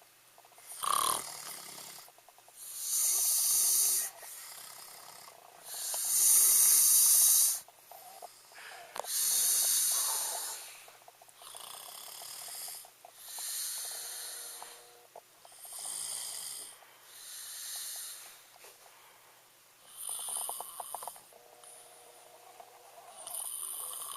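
A man snoring, with a long, hissy, noisy breath every two to three seconds. The loudest snores come in the first ten seconds.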